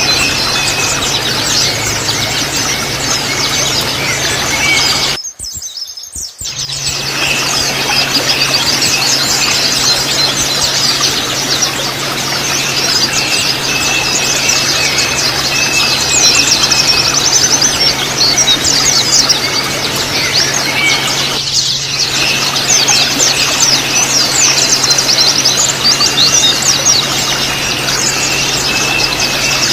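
A flock of white-eyes (pleci) twittering in rapid, dense, high chirps, the fast chatter called ngriwik, over a steady low hum. The sound cuts out briefly about five seconds in.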